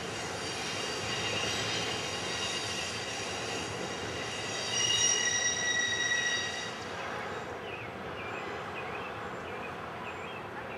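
Freight cars of a Norfolk Southern double-stack intermodal train rolling on a tight curve, their wheel flanges squealing against the rail over a steady rolling rumble. The squeal is several high steady tones, loudest about five seconds in, and dies away about seven seconds in, leaving the rolling noise.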